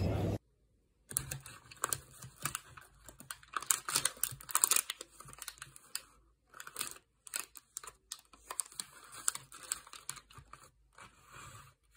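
Plastic wrappers of Nesquik Milk Slice snack bars crinkling as they are handled, in irregular rustling bursts, loudest about four to five seconds in. Before that, a brief moment of shop background noise cuts off abruptly.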